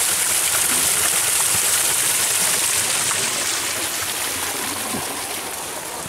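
Fast-flowing water rushing steadily, starting abruptly and easing off a little in the second half.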